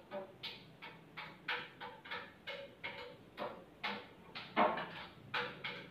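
Light clinks and scrapes of a spoon against a plate and serving bowl during eating, short and repeated several times a second.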